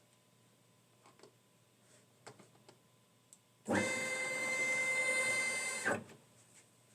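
Stepper motors of a Longmill CNC router jogging the gantry: a steady whine that starts abruptly after a few light clicks, holds for about two seconds, then stops abruptly.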